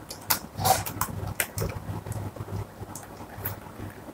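Computer keyboard keystrokes: a handful of irregular, separate clicks over a faint steady low hum.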